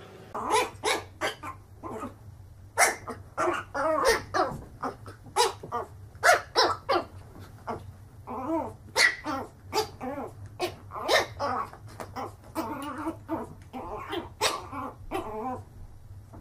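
Small puppies barking over and over in short, sharp barks, several a second at times, over a steady low hum.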